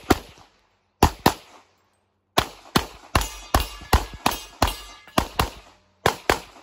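Handgun shots fired rapidly: about fourteen shots, a pair near the start and another about a second in, then a fast run of about nine shots roughly a third of a second apart, and a last pair near the end.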